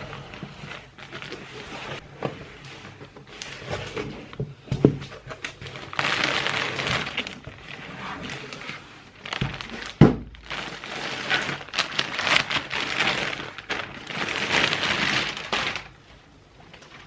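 Crinkling and rustling of plastic packaging being handled and torn open in several bursts, with two sharp thuds, the second about ten seconds in.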